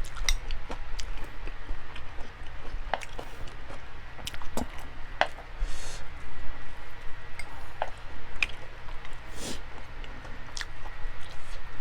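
Close-up eating sounds: wet chewing, with scattered mouth smacks and clicks at irregular intervals.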